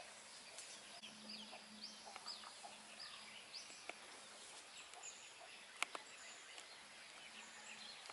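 Faint outdoor birdsong: many short, high chirps scattered throughout, with one sharp click about six seconds in.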